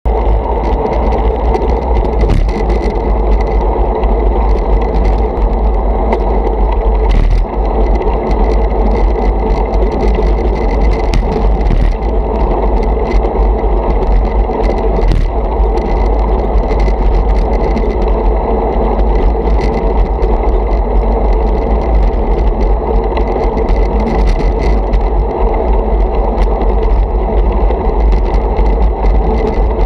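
Steady wind and road rumble picked up by an action camera mounted on a moving road bike, heaviest at the very bottom, with scattered small clicks and rattles from the bike going over the road surface.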